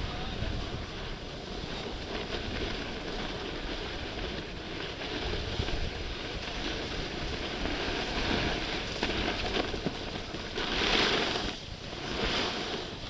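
Skis hissing over groomed snow during a downhill run, with wind buffeting the microphone. The hiss swells louder a few times in the second half, strongest about eleven seconds in.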